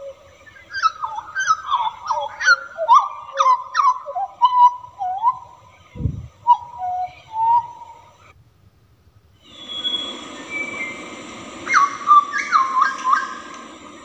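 Hooded butcherbird singing a fast series of fluting, down-slurred whistles, with a brief low thump about six seconds in. After a short pause the song resumes with a second quick run of notes over a steady hiss.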